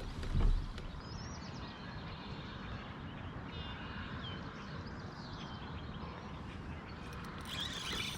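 Faint chirping bird calls over a steady low rumble, with a dull thump about half a second in.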